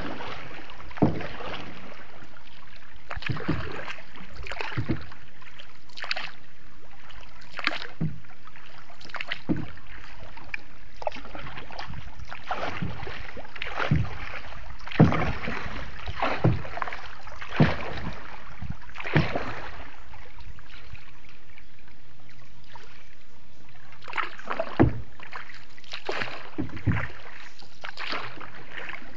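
Paddle strokes dipping and splashing in floodwater as a small boat is paddled along, about one stroke every second or so, with a lull of a few seconds about two-thirds of the way through.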